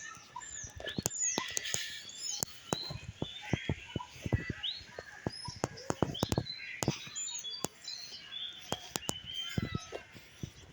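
Several birds chirping, with short rising and falling whistled notes, over frequent irregular sharp clicks and taps.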